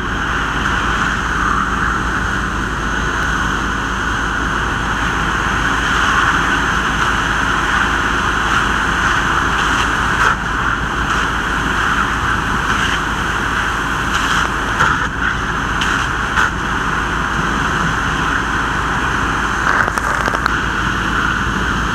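Fire hose nozzle flowing a steady stream of water, a loud continuous hiss with a low rumble beneath, broken by a few brief clicks about ten and fifteen seconds in.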